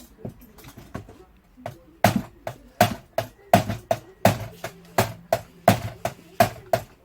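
Hammer tapping on the dented brass of an alto saxophone: a few light taps, then from about two seconds in a steady run of sharp, ringing strikes about three a second.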